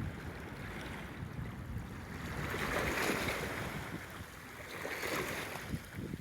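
Gentle ocean waves washing onto the shore, swelling about halfway through and easing off again, with some wind noise on the microphone.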